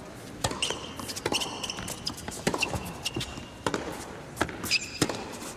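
Tennis rally on an indoor hard court: a serve and then the ball struck back and forth, sharp pops of racket on ball about once a second, with short high squeaks of shoes on the court surface between shots.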